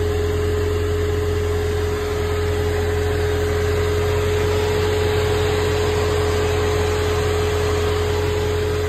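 Supercharged LT4 V8 of a C7 Corvette idling steadily, with a constant whine held over its low drone.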